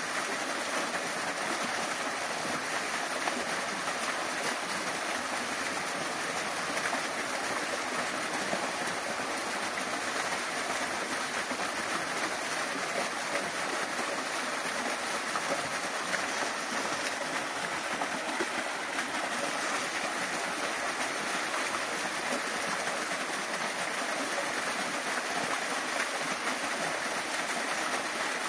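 Small waterfall cascading down a rock face and splashing into a shallow pool: a steady rush of falling water.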